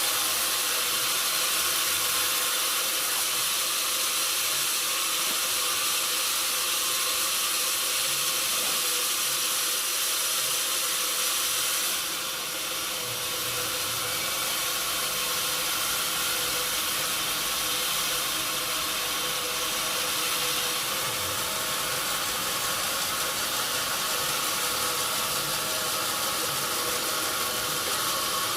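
Sawmill saw running steadily: a loud, even hiss over a fixed machine hum, easing slightly about twelve seconds in.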